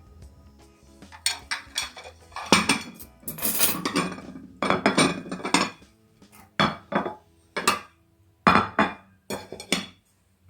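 Dishes and cutlery being handled: a run of clinks and clatters with several longer scraping strokes, separated by short pauses.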